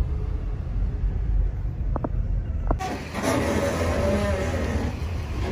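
Low, steady rumble of a pickup truck heard from inside the cab, with two short clicks about two seconds in. Near the three-second mark it changes abruptly to a louder outdoor mix of engine noise and hiss around the parked truck and trailer.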